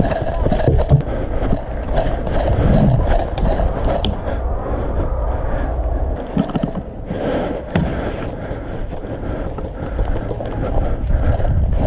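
An airsoft player on the move: footsteps, clothing and gear rubbing and rattling close to the microphone, with a steady low rumble and many scattered sharp clicks.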